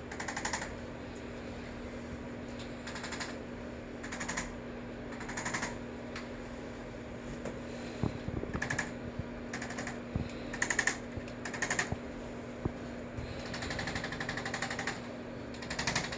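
Arthrostim chiropractic adjusting instrument firing along the spine in a string of short bursts of rapid tapping, each well under a second, with a longer run near the end, over a steady low hum. It is delivering quick percussive thrusts to stimulate the spinal joints.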